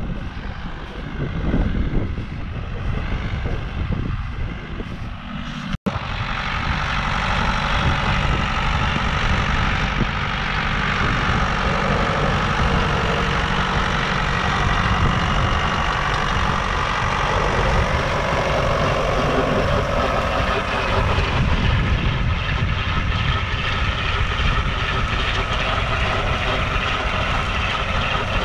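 Ford 7600 tractor's four-cylinder diesel engine running steadily under load as it pulls a Haybob rotary hay turner past close by. Wind buffets the microphone in the first few seconds. A sudden break comes about six seconds in, after which the engine is steady and louder.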